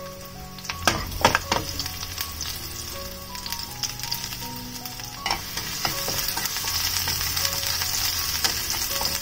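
Chopped garlic sizzling in hot oil in a non-stick frying pan, stirred with a wooden spatula, with a few sharp crackles about a second in. The sizzle grows louder from about halfway through.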